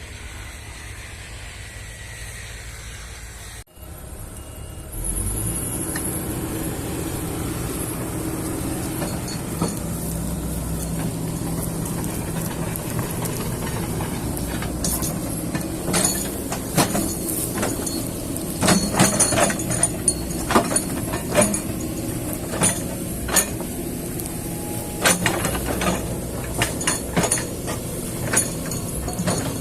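Kobelco excavator's diesel engine running steadily under load. From about halfway, many sharp cracks and clanks come through it.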